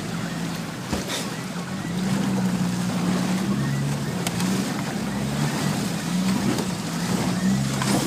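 Off-road 4x4 wading through a river, heard from inside the cab: the engine runs low and steady, its note stepping up and down, under the rush and splash of water against the vehicle, with a couple of faint knocks.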